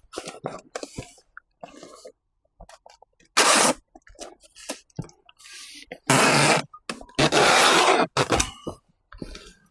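A cardboard box being closed and sealed: three loud rasping pulls of packing tape from a tape gun, the later two longer, with short knocks and rustles of cardboard between them.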